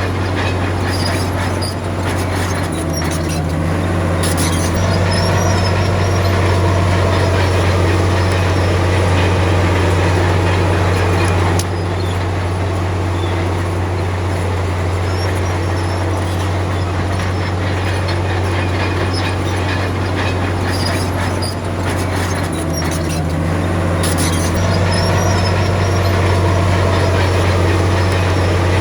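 Crawler bulldozer's diesel engine running steadily under load, with the clank and squeal of its steel tracks coming and going.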